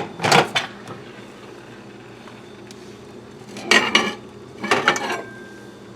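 Plate with cooked eggs handled at the microwave: a short clatter just after the start, then two clinking, clattering bursts of dishware being moved and set down, about four and five seconds in.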